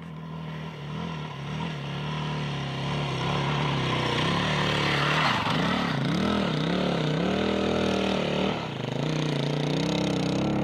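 Off-road motorcycle engine revving hard in soft sand as the bike climbs a dune, its pitch rising and falling with the throttle. It grows louder over the first few seconds and is loudest about halfway through, then eases briefly near the end before picking up again.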